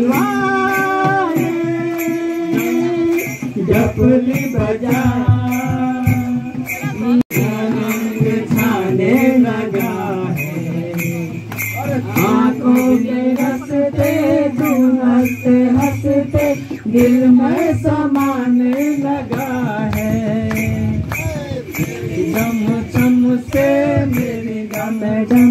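Live folk music: singing over a small two-headed hand drum, with jingling percussion beaten in a steady rhythm.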